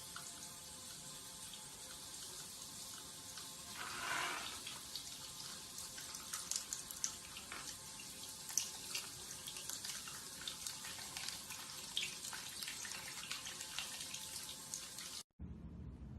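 Water running steadily, with many small splashes and drips. It cuts off suddenly about a second before the end.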